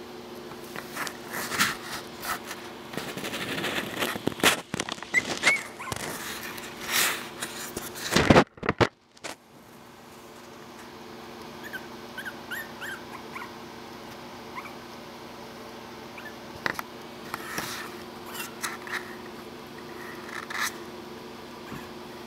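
Miniature pinscher puppies moving about in their bed, with scratching and rustling on the bedding and plastic and a few soft, short, high whimpers and squeaks. A louder knock comes about eight seconds in, followed by a brief dropout.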